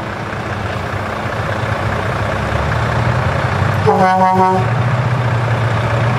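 Truck engine sound effect running steadily, laid over a hand-pushed toy dump truck, with one horn toot about half a second long about four seconds in.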